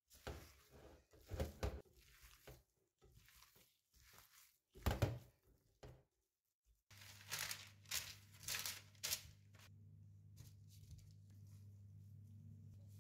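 Gloved hands kneading raw minced meat with chopped herbs in a bowl, the disposable gloves crinkling and rustling in irregular bursts. About seven seconds in, a steady low hum comes in under a few more rustles.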